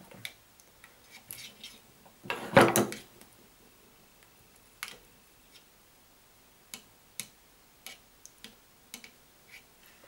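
Small clicks and handling noises as a flat telephone cable's plastic sheath is worked off by hand and with pliers, with a louder rustling scrape about two and a half seconds in and then sparse single clicks of the tool.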